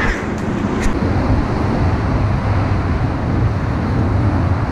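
Steady rumble of road traffic crossing the highway bridge overhead, with one light click about a second in.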